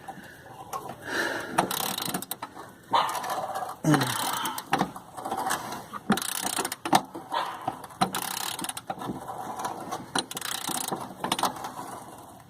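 Socket ratchet clicking in irregular runs as it is worked back and forth on a tight, stubborn body bolt, with scattered knocks of tools.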